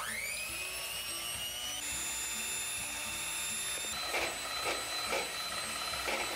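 Handheld electric mixer whipping egg whites into meringue: the motor whines up to speed at the start, then runs steadily, its pitch stepping up about two seconds in. A few light knocks come in the second half.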